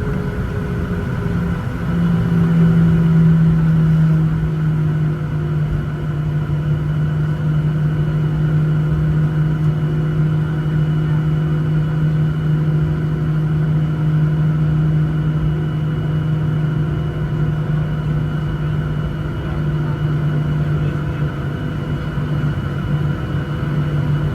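Boeing 737-900ER's CFM56-7B jet engines running at taxi power, heard inside the cabin: a steady drone with a strong low hum. A few higher tones slide slowly down in pitch over the first several seconds, and the drone gets a little louder about two seconds in.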